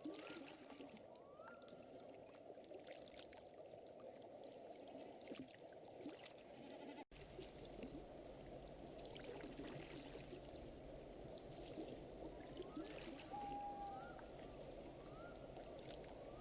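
Faint layered nature ambience: a campfire crackling with scattered small pops over a steady background hum, with short rising chirps in runs of three or four near the start and near the end. The sound cuts out for an instant about seven seconds in.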